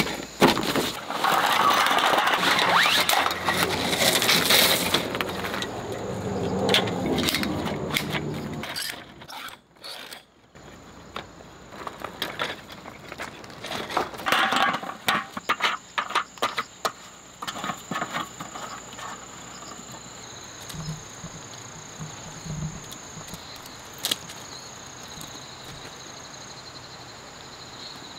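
Nylon fabric rustling and camp furniture being handled, then a run of sharp clicks and knocks as the metal legs of a folding camp table are adjusted. Under it and after it, insects chirring steadily at a high pitch.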